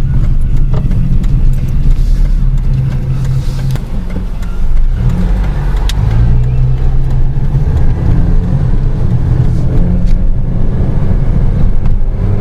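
2004 Chevy Cavalier's 2.2 L Ecotec four-cylinder engine and road noise heard from inside the cabin while driving, running steadily and smoothly. The engine note drops about four seconds in, then picks up again.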